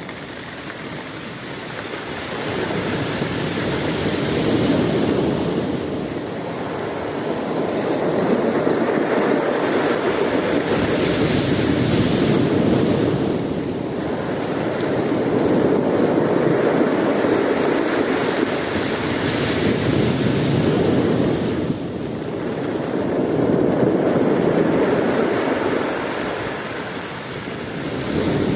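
Ocean waves breaking and washing up onto the shore in slow, repeated surges, each swell building and then falling away over several seconds.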